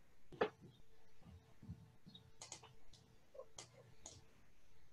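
A few faint computer mouse clicks, spaced unevenly, as a menu option is picked and a dialog opens. A faint steady hum runs underneath.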